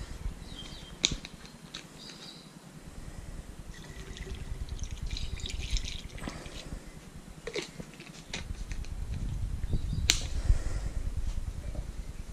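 Liquid being poured from a plastic bottle through a plastic funnel into a spray bottle, along with clicks and knocks as the bottles are handled.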